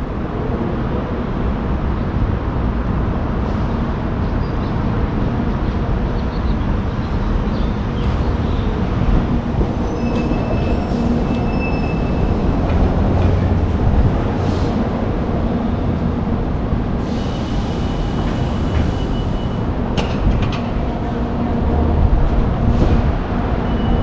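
Steady, loud low rumble of outdoor airport-roadway ambience, with faint high tones now and then and a brief hiss about two-thirds of the way through.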